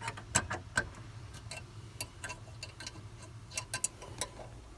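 Ratchet wrench with a 7 mm socket clicking in short, uneven strokes as it turns a dash-panel screw.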